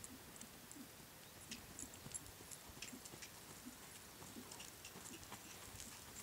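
Faint hoofbeats of a horse trotting on soft sand arena footing: soft, irregular thuds with light ticks over a low hiss.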